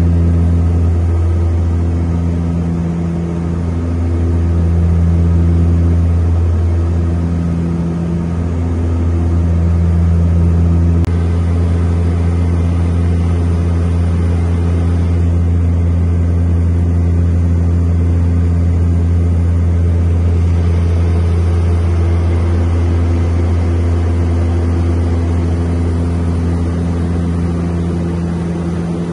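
De Havilland Canada DHC-6 Twin Otter seaplane's turboprop engines and propellers droning steadily, heard inside the cabin. For the first ten seconds or so the drone throbs slowly, about every two seconds, then runs smoother.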